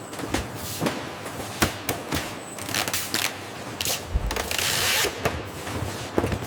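Processing machinery clattering: irregular clicks and knocks over a steady running noise, with a short hiss of air about four and a half seconds in.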